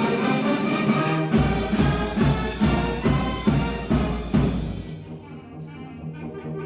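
Brass band playing: loud, accented full-band chords over a deep low bass note, then dropping to a softer sustained passage about five seconds in.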